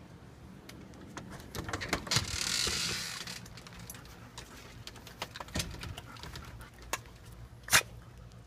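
Dogs' nails clicking and tapping on wooden deck boards, with a short scraping rush about two seconds in and a sharp knock near the end.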